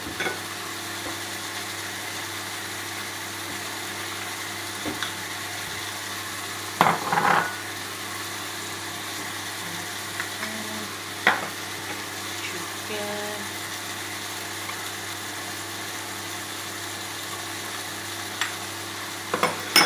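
Chicken, sausage and mixed vegetables frying in a pan with sauce, sizzling steadily, with occasional scrapes and knocks of the spatula against the pan as it is stirred. The longest burst of stirring comes about seven seconds in, with shorter knocks near eleven seconds and at the end.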